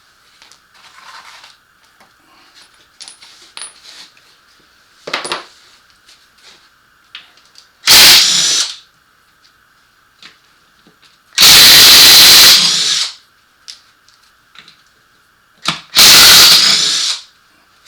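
Hand-held power tool, of the drill or driver kind, running in three bursts as the transfer case is taken apart: a short one about eight seconds in, a longer one of about a second and a half near the middle, and another near the end. Light clicks and taps of tools and metal parts come in between.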